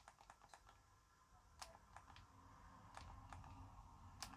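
Faint, scattered small clicks and taps of hands handling a small plastic personal stereo cassette player while tuning its radio, over a low hum.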